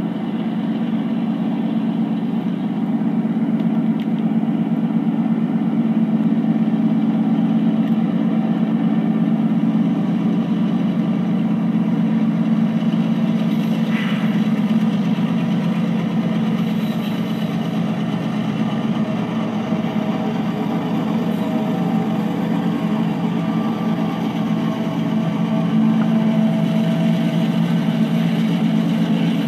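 Two GE diesel-electric freight locomotives, a CP ES44AC and an AC4400CW, run as they approach: a steady low engine drone that swells a little a few seconds in and again near the end as they draw close.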